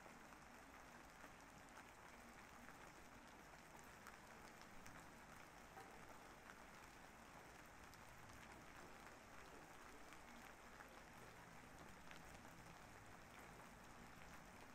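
Faint, steady rain with scattered small drop ticks.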